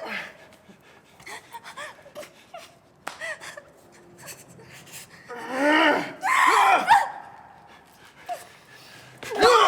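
A person's wordless vocal sounds: gasps and voiced, breathy cries in two bursts, one about five to seven seconds in and a shorter one near the end, with faint breaths between.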